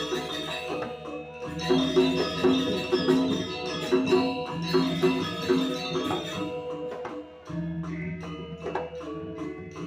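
Balinese gamelan balerung ensemble playing: a dense, rhythmic layer of struck, ringing metal tones over low held notes, with jingling, clashing percussion on top.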